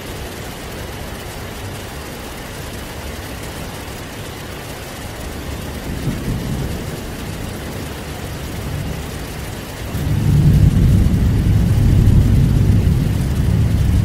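Heavy rain falling steadily, with thunder: a low rumble swells about six seconds in, then a louder, long rumble starts about ten seconds in and keeps going.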